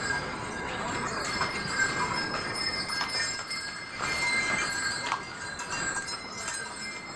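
Small bells jingling and clinking over a steady rush of noise.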